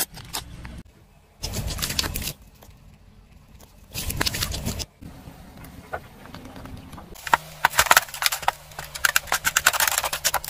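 Car tyre crushing objects on tarmac: two short bursts of crunching, then a fast run of cracks and pops as the tyre rolls over a row of aluminium drink cans, bursting them.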